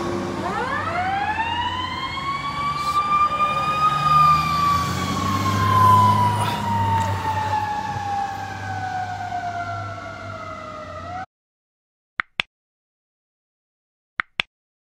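Fire truck siren winding up from a low pitch to a high wail over about four seconds, then slowly falling in pitch, with the truck's engine running underneath. The sound cuts off about eleven seconds in, and two pairs of short clicks follow.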